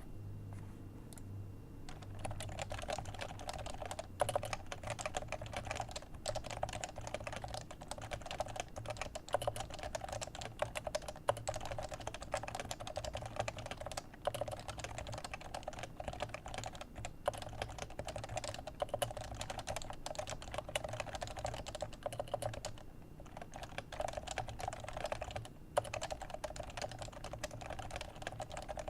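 Fast, continuous typing on a Leopold FC660c keyboard with Topre 45 g electrocapacitive switches. The keystrokes start about two seconds in and run on with a couple of short pauses near the end.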